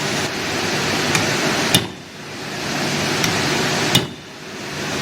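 Two sharp hammer blows on metal, about two seconds apart, from work on the mixer's parts. Beneath them runs a steady hum of plant machinery.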